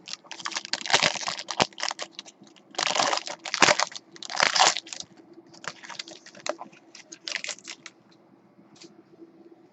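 Foil wrapper of a 2014 Triple Threads football card pack crinkling and tearing as it is pulled open by hand, in an uneven run of crackles that thins out about eight seconds in.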